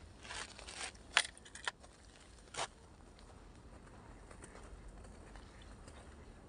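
Hands fiddling with a lure and line on a spinning rod: a few short rustles and clicks in the first three seconds, the sharpest about a second in, then only faint background hiss.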